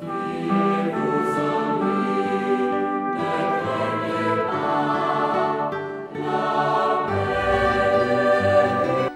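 A choir singing held notes with orchestral accompaniment.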